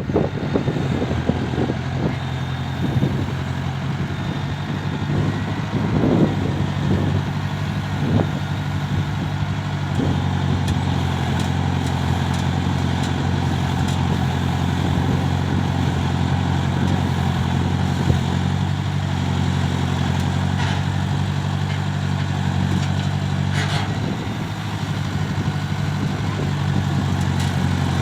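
Heavy diesel engine running steadily at a low, even speed, with a few short knocks and clanks in the first ten seconds or so.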